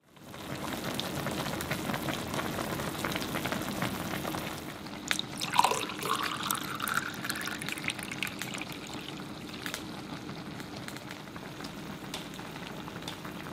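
Sake poured from a bottle into a glass about five seconds in, glugging with a rising pitch as the glass fills, over the steady bubbling of a hot pot simmering on a tabletop gas burner.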